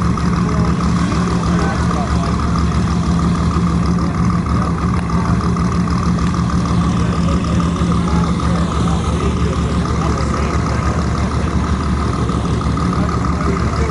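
A car engine idling steadily, with indistinct crowd chatter behind it.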